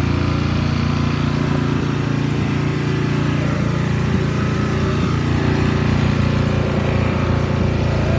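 Snow blower engine running loud and steady at a constant speed, being run to burn off the gas left in it.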